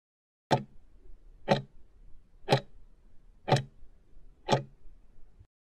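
Clock-tick sound effect counting down a timer's last five seconds: five sharp ticks, one a second.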